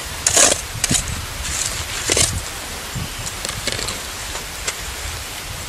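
Crunching and scraping of snow and ice at an ice-fishing hole as a set line is pulled up by hand: a few sharp crunches in the first two and a half seconds, then quieter rustles and clicks, over a steady low rumble.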